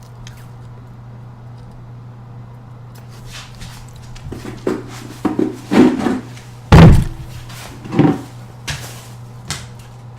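Steady low hum, then a run of knocks and thumps starting about four seconds in, like a door being handled and shut, with one loud heavy thump a little before the middle of the second half.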